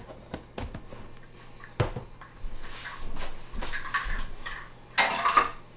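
Kitchen utensils being handled off to the side: a sharp knock about two seconds in, a stretch of rustling and scraping, then a louder clatter near the end.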